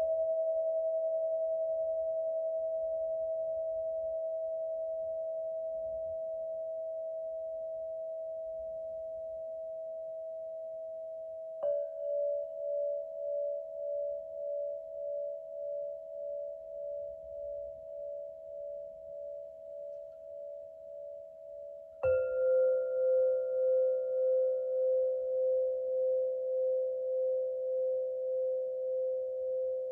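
Struck sound-healing instruments ringing with pure, bell-like tones. A new, lower note is struck about 12 seconds in and again about 22 seconds in. Each note rings on and slowly fades with a slow wavering beat, layered over the notes still sounding.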